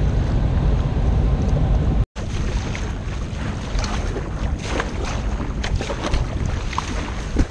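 Wind buffeting the microphone at first. After a brief break, a sea kayak being paddled hard: paddle blades splashing in and water rushing and spraying off the bow.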